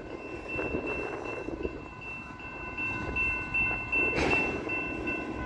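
Freight cars of a manifest train rolling past: wheels rumbling and clattering on the rails, with a steady high-pitched squeal over it. A sharp metallic screech stands out about four seconds in.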